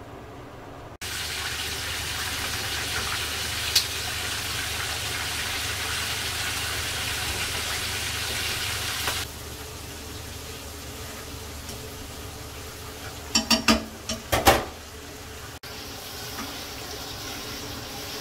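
Seafood deep-frying in hot oil in a wok: a loud, steady sizzle that drops suddenly to a quieter frying hiss about nine seconds in. A quick run of metal clatters against the pan comes a little past the middle.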